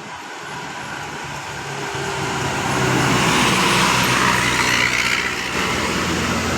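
A bus approaching and passing close by, its engine running and growing louder over the first three seconds, with the engine note falling as it comes closest and a broad rushing noise as it goes past.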